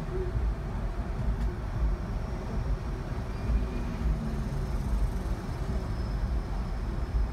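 Steady low rumble of idling vehicles and road traffic.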